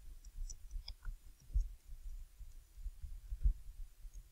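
Typing on a computer keyboard: an irregular run of keystrokes, heard as dull taps with light clicks.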